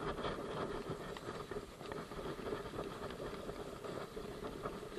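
Fishing reel running with a steady whir and fast rattling clicks as a hooked young yellowtail is fought, starting the moment the fish takes the lure.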